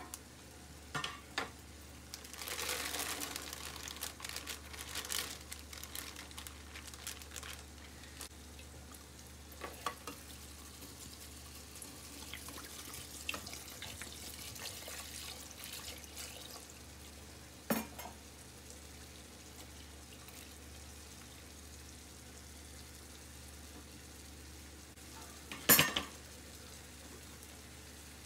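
Frozen fava beans rustling out of a plastic bag into a stainless steel pot, then tap water running onto the beans in the pot, with scattered clicks and one loud knock near the end.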